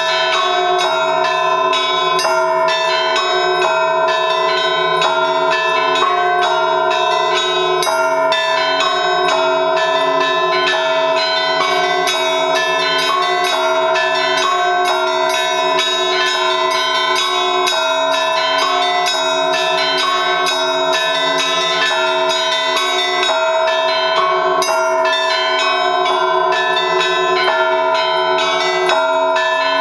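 Russian Orthodox trezvon: an ensemble of church bells rung together in a steady three-beat (3/4) rhythm, a festive full peal rung at the end of the Divine Liturgy. The ringing is dense and unbroken, with many quick strikes over the steady hum of the larger bells.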